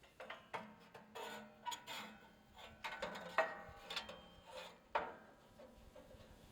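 Steel band sawmill blade being handled and seated on the flywheel: a series of light metal clinks and scrapes, a few with a brief ring, the sharpest about three and a half seconds in.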